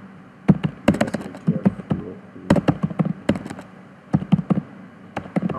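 Computer keyboard being typed on: quick runs of key clicks with short pauses between them.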